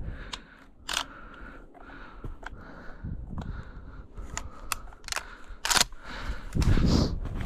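Scattered sharp clicks and snaps over faint rustling, like handling gear and moving through brush, turning to heavier rustling and footfalls about six and a half seconds in.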